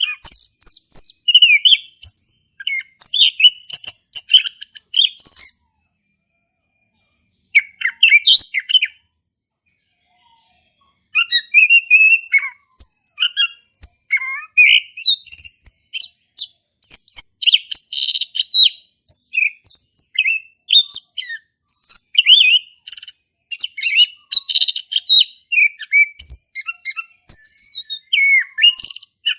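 Male chestnut-capped thrush (anis kembang) singing a fast, varied song of chirps and whistles in full voice, pausing twice in the first half before singing steadily again.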